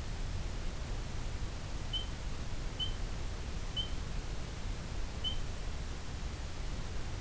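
Steady low rumble and hiss of outdoor background noise, with four short high peeps about a second apart in the middle.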